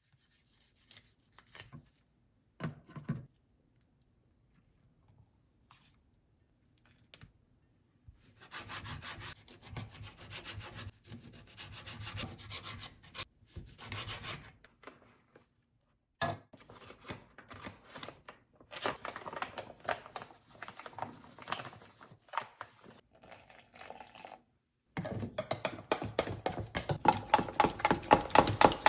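Kitchen food-preparation noises: rubbing and scraping strokes that come and go with quiet gaps, and a louder run of quick repeated strokes in the last few seconds.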